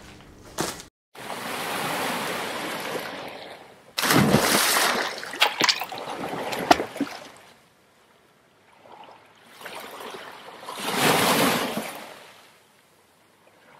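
Splashing and surging water sound effect: a rush of surf-like noise, a sudden splash about four seconds in with a few sharp drip-like clicks, and a second wave swelling and fading near the end.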